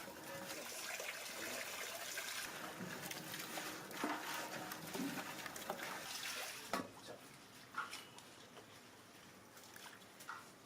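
Water trickling and sloshing, with a few light knocks; it quietens after about seven seconds.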